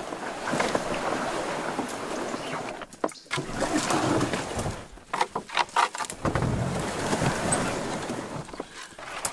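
Canoe paddling: paddle strokes splashing in the water with some wind on the microphone, a cluster of irregular splashes about two-thirds of the way through.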